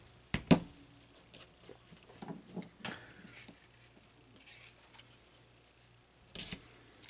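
Handling noise: scattered light clicks and knocks of plastic sunglasses being picked up, turned over and set down on a desk, the sharpest about half a second in, three more around two to three seconds, and two near the end.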